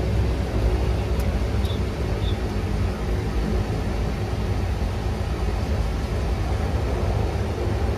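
Steady low drone of a de Havilland Canada Dash 8-100 twin turboprop's engines and propellers inside the cabin.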